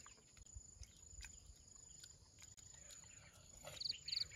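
Quiet outdoor background with faint scattered clicks and a thin steady high tone, broken near the end by two short, high chirps in quick succession.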